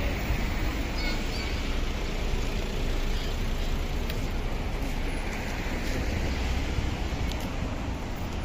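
City street traffic: a steady wash of car engines and tyre noise from passing vehicles, with a low rumble throughout.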